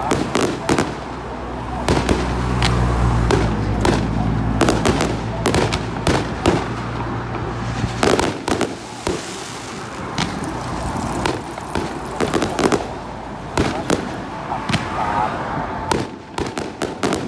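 Fireworks going off: irregular sharp bangs and crackles, sometimes several in quick succession. For roughly the first half there is a steady low hum beneath them.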